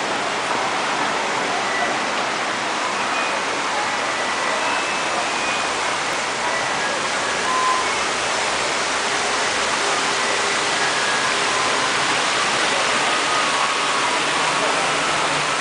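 Steady rushing hiss of splashing fountain water, even and unchanging throughout.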